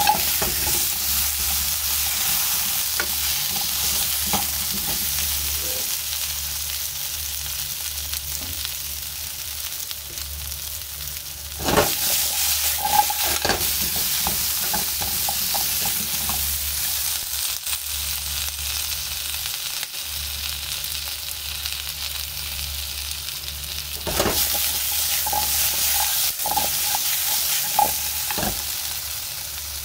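Chunks of potato sizzling steadily in oil in a frying pan. The sizzle surges with clattering knocks three times, at the start, about 12 seconds in and about 24 seconds in, as the potatoes are tossed and turned in the pan.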